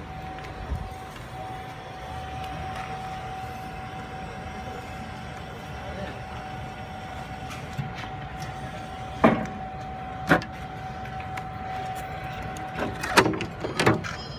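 Heli CDD16 electric stand-on stacker running with a steady, single high-pitched electric whine over a low rumble. Several sharp clicks and knocks come in the second half as its tiller handle and buttons are worked.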